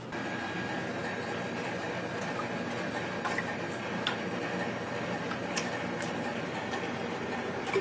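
Steady hum of kitchen machinery with a few light clicks and ticks scattered through it.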